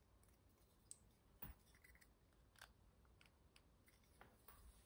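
Faint, scattered clicks of a Hansen Sever custom folding knife being worked in the hand: the blade swinging on its pivot and the lock engaging, a handful of irregular clicks against near silence.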